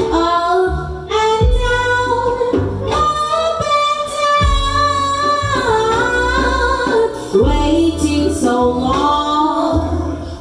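A woman singing long, held and gliding notes without clear words, over live band accompaniment with a sustained bass line.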